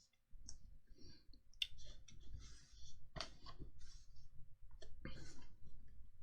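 Trading cards being handled and slipped into plastic card sleeves: soft rustling and sliding of card stock and plastic, with several light clicks and taps.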